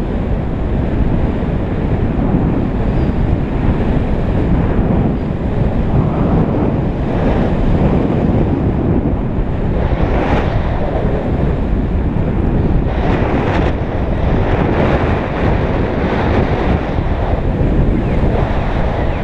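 Loud, steady wind rushing over the microphone of a camera worn by a paraglider pilot in flight. A few brief, hissier gusts come partway through.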